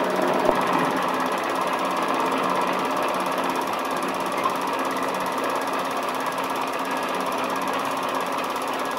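Running film projector: a steady, fast mechanical clatter from its film-advance mechanism, even in level throughout.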